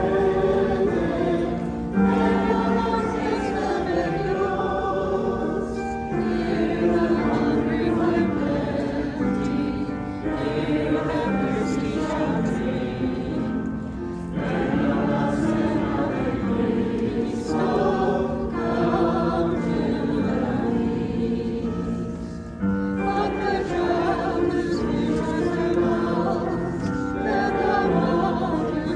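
Church choir singing a hymn: held notes in shifting chords, sung line by line with short breaks between phrases.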